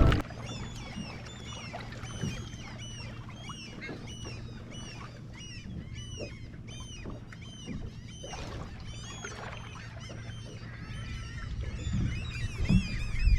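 A flock of seabirds calling over a bait boil: many short arched cries overlapping throughout, above a steady low hum from the boat's idling engine.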